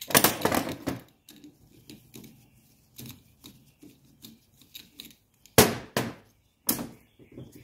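Hand tools and small metal parts clattering on a steel workbench, with a sharp clank at the start and two more near the end as tools are set down.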